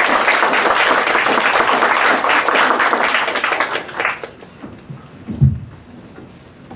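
Audience applauding, a dense patter of clapping that fades out about four seconds in. About a second later there is a single low thump.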